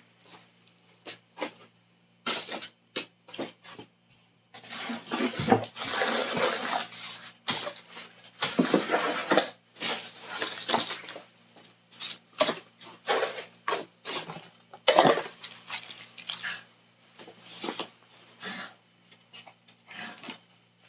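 Hands rummaging through a subscription box: paper packing material rustling and crinkling in irregular bursts, with light clinks and knocks of small objects being moved about.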